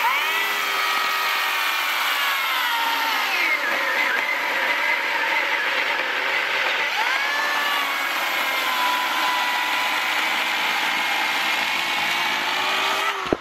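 Oregon corded electric chainsaw cutting through a log, its motor whine dipping in pitch as the chain bites into the wood and recovering, several times. It starts suddenly and cuts off near the end.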